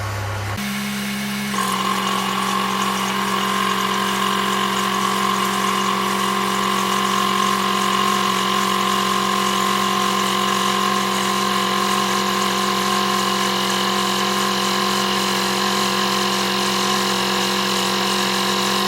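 Belt-driven RV2 onboard-air compressor running off a Jeep Wrangler's 2.5-litre engine idling at about 750 RPM, pumping up an air tank. The sound steps up and gains a high whine a second or two in, then holds at a steady, unchanging pitch.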